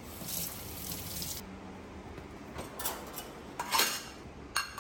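Water runs briefly from a kitchen tap, then plates clink a few times as they are slotted into a metal pull-out dish rack.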